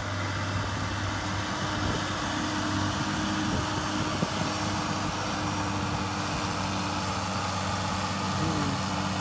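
Farm tractor's diesel engine running steadily with an even low hum as it pulls a rotary tiller through tall weeds and passes close by, over a rough churning noise from the work.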